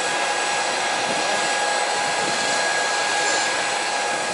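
Steady turbine whine and rush from a parked Embraer regional jet, running at idle with a few high tones held level over the noise.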